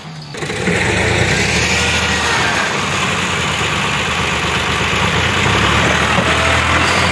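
Diesel farm tractor engine starting up again about half a second in after stalling, then running steadily; the tractor is bogged down with a loaded soil trolley.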